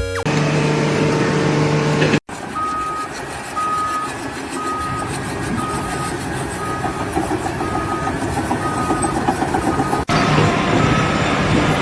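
A heavy vehicle's reversing alarm beeping evenly, about one and a half beeps a second, over engine and machinery noise. For the first two seconds a steady engine hum is heard instead.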